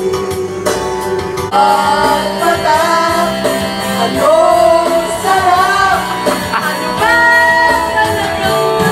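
A woman singing karaoke into a microphone over a music backing track, amplified through the booth's speaker. The singing comes in about a second and a half in over the backing music.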